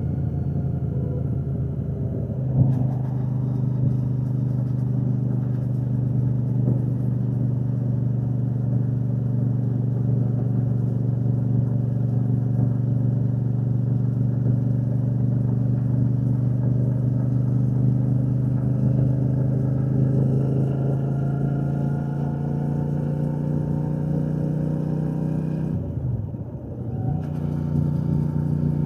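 Royal Enfield Shotgun 650's parallel-twin engine and exhaust running steadily at cruising speed. It firms up slightly about two and a half seconds in, and near the end it briefly drops in level and pitch before coming back.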